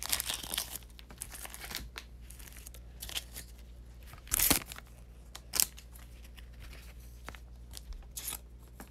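Thin plastic card sleeves crinkling and rustling as they are handled and a trading card is slid into one, with a louder crinkle about four and a half seconds in and a shorter one a second later.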